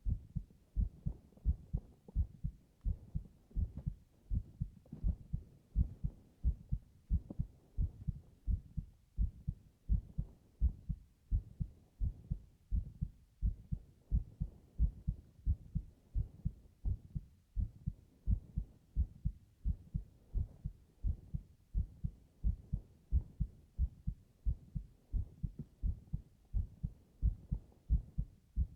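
A human heartbeat heard close up against the chest, as if by an ear pressed to it: a steady rhythm of paired low thuds (lub-dub).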